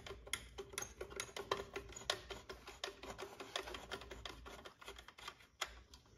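A hand tool with a T20 Torx bit backing a screw out of a headlight assembly, giving a run of quick, irregular clicks several times a second.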